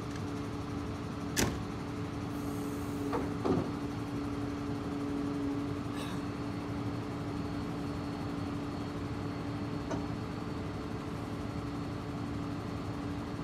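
Hydraulic knuckle-boom crane on a Scania R124 truck folding in, with the truck's straight-six diesel and hydraulic pump running at a steady hum. A few sharp knocks from the boom in the first few seconds.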